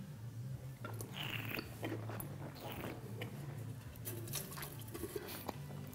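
Faint mouth sounds of a wine taster sipping, working the wine around the mouth with small wet clicks and slurps, then spitting it into a metal bucket about four seconds in.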